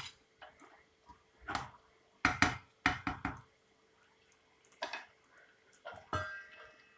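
Scattered knocks and clinks of metal cookware, about six in all, spaced a second or so apart; the last, near the end, rings briefly.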